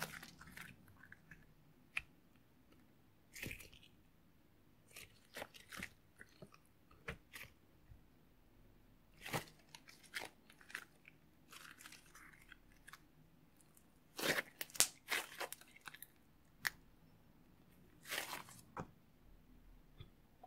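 Thick slime being stretched and squeezed by hand, giving off scattered sticky pops and crackles, now and then in quick little clusters.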